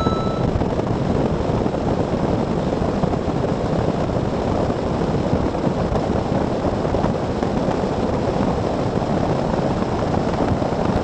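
Falcon bass boat running at speed: a steady rush of wind buffeting the microphone and water along the hull, with no distinct engine note standing out.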